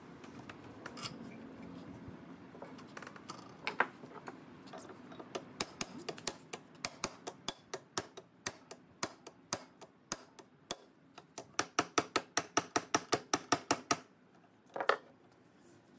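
A series of sharp taps or clicks, scattered at first, then quickening to a quick run of about four or five a second, with one louder, longer knock near the end.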